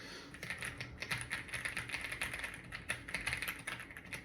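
Computer keyboard being typed on quickly, a dense run of key clicks, many a second.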